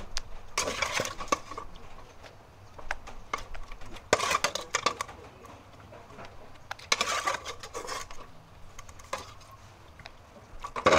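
Dried red chillies and other ingredients dropped by hand into a mortar. Three short bursts of light rattling and clicking come about three seconds apart, with a few single clicks between.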